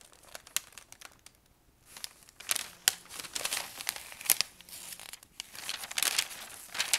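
Sheets of paper in a handmade book rustling and crinkling as they are handled and turned by hand, in irregular bursts with a brief lull about a second in.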